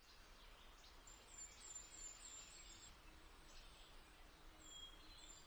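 Near silence: the faint hiss of a room picked up by a video-call microphone, with a run of faint, quick, high chirps about a second in and a few more near the end.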